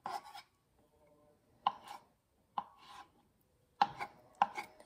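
Kitchen knife slicing through hard-boiled eggs and knocking on a wooden cutting board: about five separate, irregularly spaced strokes.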